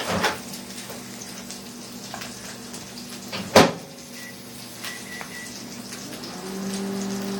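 Faint crackling and small handling clicks from a rebuilt vape sub tank, with one sharp click about three and a half seconds in and a steady low hum coming in near the end.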